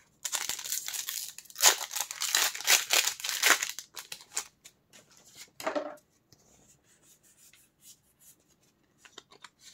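Foil Pokémon booster pack wrapper being opened, crinkling and tearing for about four seconds, then a short rustle and faint handling of the cards.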